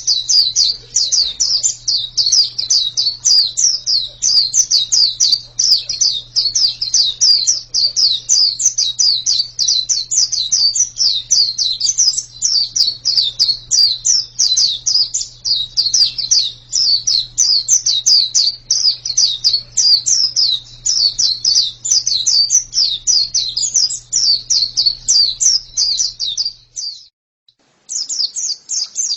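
Pleci (white-eye) singing a long, fast, high-pitched twittering song of quickly rising and falling notes, breaking off briefly about 27 seconds in and then starting again. A faint steady low hum runs under the song and stops at the same break.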